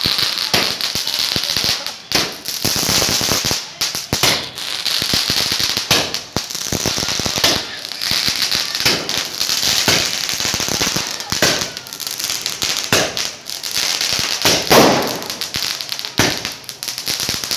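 Standard 112-shot firework cake firing shot after shot in quick succession: a dense run of pops and crackles over a steady hiss, with the loudest bang about fifteen seconds in.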